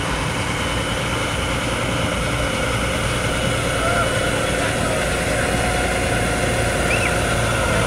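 Steady low engine rumble from slow-moving vehicles, mostly a heavy diesel log truck creeping up behind a car, growing a little louder toward the end. Brief voices of onlookers come through now and then.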